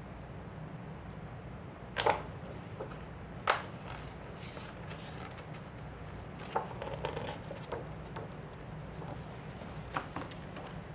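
Stiff picture-book pages being handled as a fold-out page is opened out: two sharp paper snaps about two and three and a half seconds in, soft rustling later, and a light tap near the end, over a steady low room hum.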